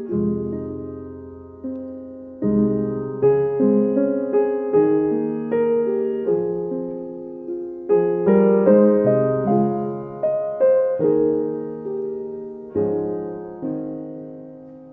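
Soft solo piano background music: single notes and chords struck and left ringing, the last chord fading away near the end.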